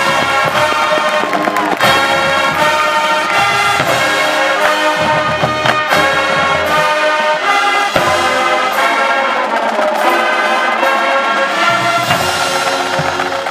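Marching band playing, its brass section holding loud chords that change every second or so, with a few sharp drum hits.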